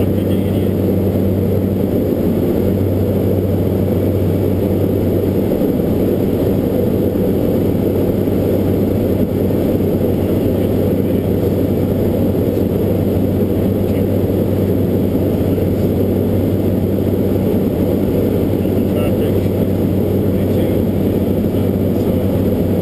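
Steady cockpit drone of a Beechcraft 1900D in cruise flight, heard inside the cockpit: the two Pratt & Whitney PT6A-67D turboprops and their propellers give a dense steady roar with a constant low hum underneath.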